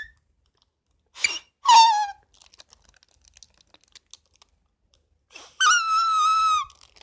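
Shrill, squealing whistle blown three times: a short blast, a half-second whistle that falls in pitch, then a steadier, slightly wavering whistle of about a second near the end.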